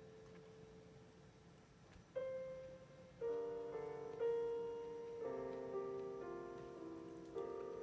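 Slow, quiet background piano music: single notes and chords struck about a second apart, each fading away.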